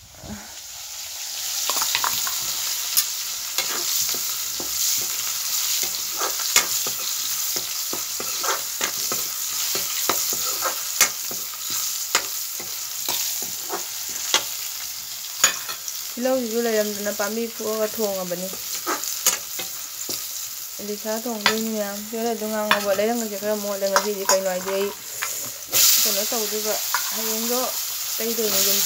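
Fish pieces and onion frying in hot oil in an iron wok, a steady sizzle broken by many short clicks and scrapes of a ladle stirring against the pan. About three-quarters of the way through the sizzling suddenly gets louder, as potato slices go into the oil. A voice is heard in the background for several seconds around the middle.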